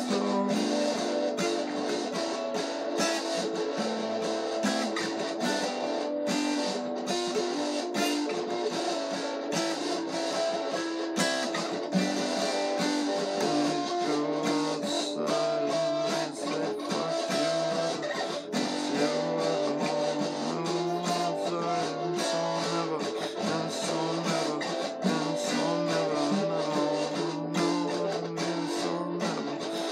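Acoustic guitar played solo by hand, a continuous run of picked notes and chords with no singing.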